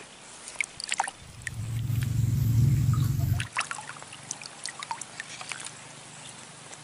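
Water trickling and dripping in small scattered splashes, with a loud low rumble from about one to three and a half seconds in.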